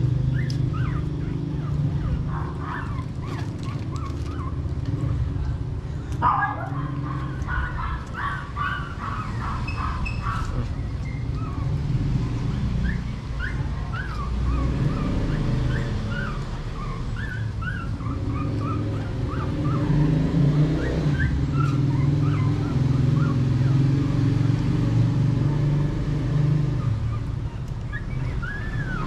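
Shih Tzu puppies, about three weeks old, whining and squeaking in many short high cries while being hand-fed, over a steady low hum.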